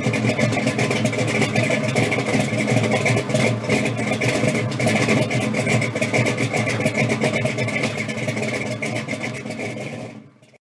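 Car engine running steadily with a crackling exhaust note, then fading out near the end.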